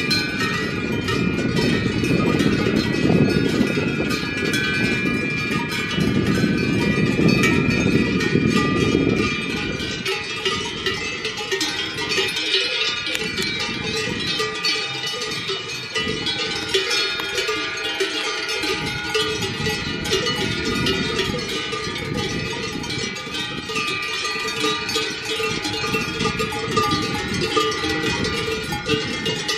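Many cowbells on grazing cattle clanking and ringing together, a jangle of overlapping metallic tones. A low rumble sits under it for the first nine seconds or so, then fades.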